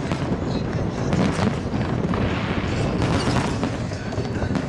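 Aerial fireworks going off in a continuous barrage of booms and crackling bangs.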